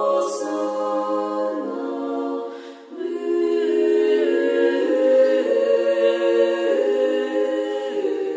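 Unaccompanied choir singing slow, held chords, with a short break about three seconds in before the voices come back in.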